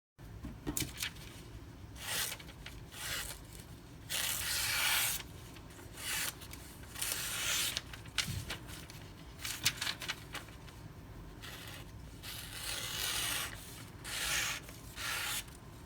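A freshly sharpened and stropped knife blade slicing through paper, in a series of about ten separate hissing slicing strokes, each a second or less long.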